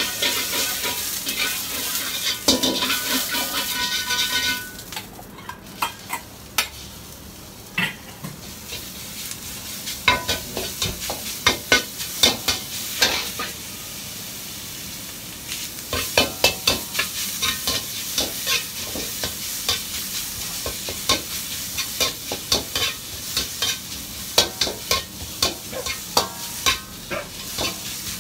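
A hot frying pan sizzles loudly for the first four or five seconds as food is stir-fried. The frying then settles lower, with a metal spatula repeatedly scraping and knocking against the pan.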